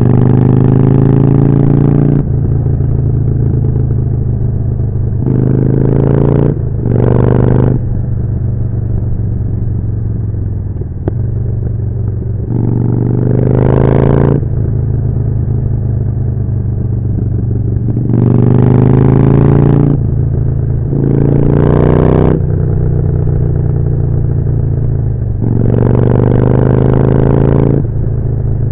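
Harley-Davidson Forty-Eight's air-cooled V-twin running through a Jekill & Hyde aftermarket exhaust. The rider opens the throttle about seven times, each time the engine note rising loudly for a second or two before dropping back to a lower, quieter note off the throttle.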